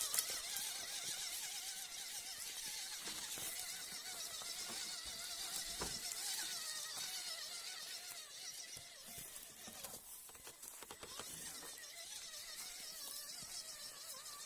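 Electric motor of an RC rock crawler whining, its pitch wavering up and down as the throttle and load change, with crackling of dry leaves and twigs under the tyres.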